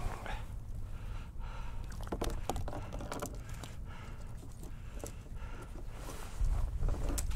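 Small waves lapping against a plastic kayak hull, with irregular light taps and knocks, over a low wind rumble that grows louder near the end.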